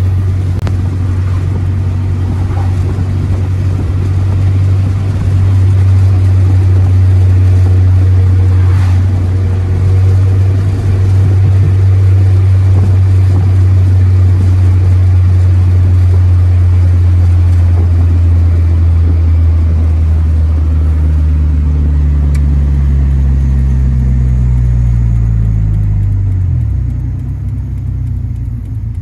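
Honda Prelude's four-cylinder engine and road noise heard from inside the cabin while driving at a steady speed. From about 21 seconds in, the engine note falls as the car slows.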